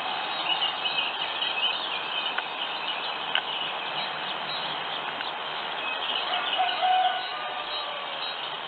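Small songbirds chirping and twittering in short bits over a steady hiss, with a brief louder, lower note about seven seconds in.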